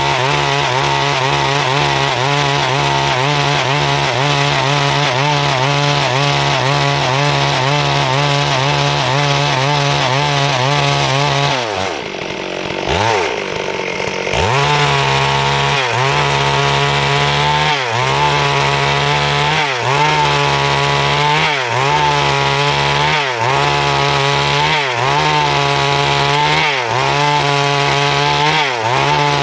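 Stihl MS 382 two-stroke chainsaw running under load, cutting wood. About halfway through, the engine speed drops and recovers. After that, the revs sag and pick back up roughly every two seconds as the chain bites.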